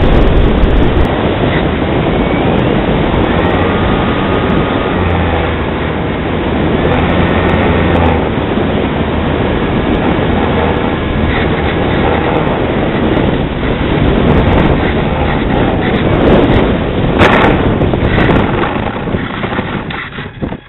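Wind rushing over the onboard camera's microphone as a radio-control Carbon-Z Cub glides with its propeller windmilling, a loud steady rush of air. There is a brief louder crackle a few seconds before the end, and the rush then fades as the plane settles into brush.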